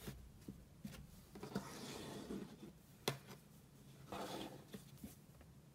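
Faint rustling and rubbing as hands handle and slide crocheted jute pieces across a tabletop, in two short stretches, with a single sharp tap about three seconds in and a few light ticks.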